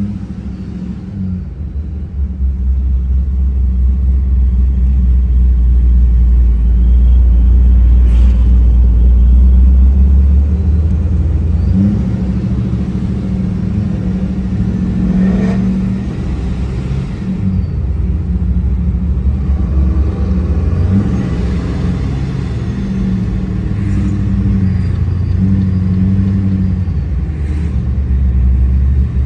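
Loud, low exhaust rumble of modified V8 sedans driving, the engine note rising and falling a few times.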